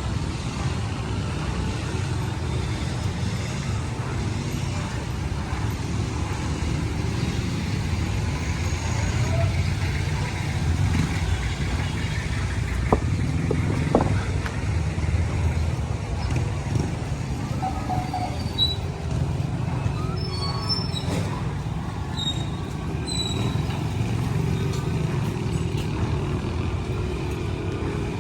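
Street traffic: a steady low rumble of passing vehicles, with two short sharp knocks about halfway through.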